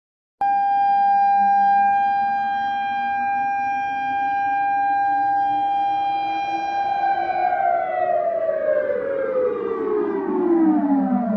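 Air-raid siren played in reverse: it cuts in suddenly at full pitch and holds a steady wail for several seconds, then glides smoothly down in pitch over the last few seconds.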